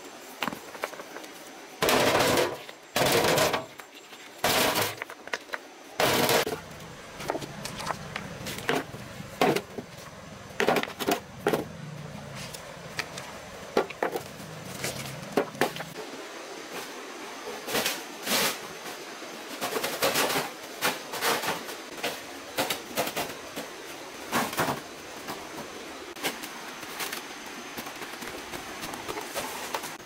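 Stones being picked up and dropped into a metal wheelbarrow tray: a run of irregular sharp clanks and knocks, heaviest and loudest in the first few seconds, then lighter and more scattered.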